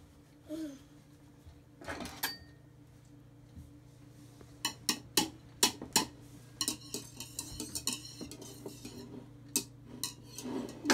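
Wire whisk beating eggs by hand in a bowl, clinking against the bowl's sides in quick, irregular runs through the second half, after a couple of knocks about two seconds in.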